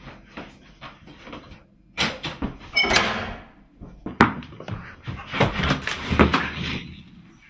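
Knocks, clatter and rustling of things being handled, starting about two seconds in, with a sharp click a little after four seconds.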